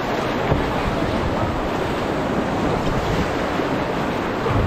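Loud, steady rush of whitewater churning around a canoe's bow in a swollen river rapid, with wind buffeting the microphone in low thumps that grow stronger near the end.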